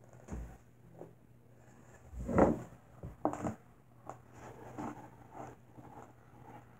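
Rustling and knocking close to the microphone as a person moves right up against it: a low thump near the start, a louder knock a little over two seconds in, another about a second later, then soft clicks and rustles.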